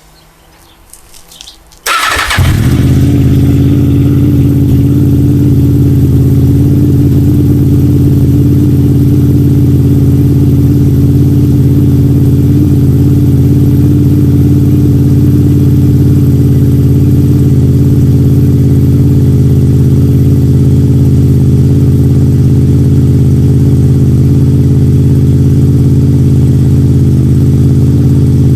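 Honda VFR800 VTEC's V4 engine, breathing through a Leo Vince exhaust with the dB killer removed, starts from cold about two seconds in. It then runs loudly at a steady idle.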